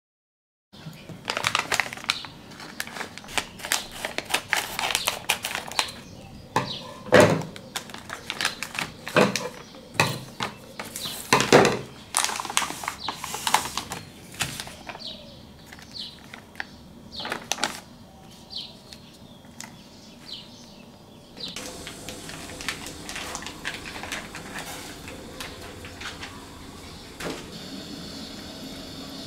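Plastic noodle packaging crinkling and crackling as the bag is torn open and the plastic tray and sauce sachet are handled. About 21 seconds in, this gives way to a steady hiss from the gas stove and the saucepan of noodles cooking in water.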